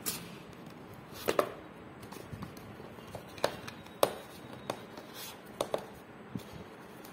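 Cardboard smartwatch box being handled and its printed sleeve slid off: a string of sharp taps and knocks of cardboard packaging with brief rustles, the loudest about a second and a half in and about four seconds in.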